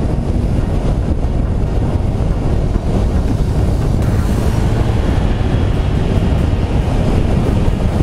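Heavy wind buffeting on a GoPro's microphone on a motorcycle ridden at road speed: a steady low rumble, with a brief rise in hiss about four seconds in.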